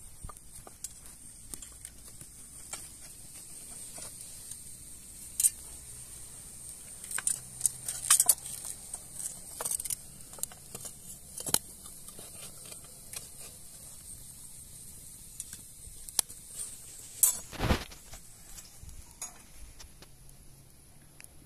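Cooking work with pots and utensils: scattered clinks and knocks over a steady high hiss, and one heavier thump near the end.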